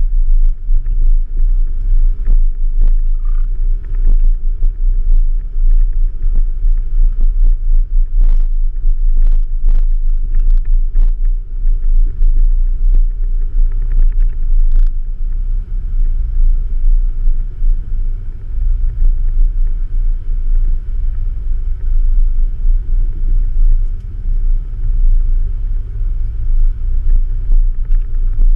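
Off-road Jeep giving a heavy low rumble as it runs the trail, with scattered knocks and clatter over the first ten seconds or so.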